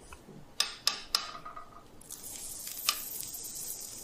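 Kitchen utensils clinking lightly: three sharp clicks within the first second and a half, the last leaving a short ring, and another about three seconds in, over a faint steady hiss.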